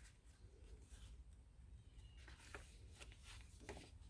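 Near silence with a low room hum, then from about two seconds in several faint, short rustles and taps of paper tags and pages being handled.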